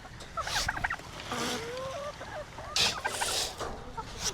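Farm poultry calling in several short bursts of quick, wavering notes, with bursts of rustling between them.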